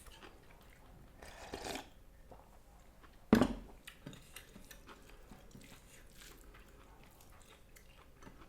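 Close-miked chewing and biting of food, soft and intermittent, with a single sharp, loud crunch or knock about three seconds in.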